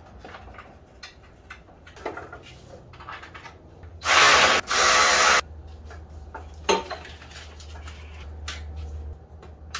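A cordless power driver runs in two short back-to-back bursts, driving a bolt in. Light clicks and clinks of tools and parts come before and after.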